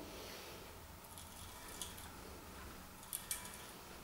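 Faint clicking and scraping of a hand tap cutting a thread into a steel bar as it is turned with a tap wrench, metal chips breaking off. A couple of sharper clicks come about three seconds in.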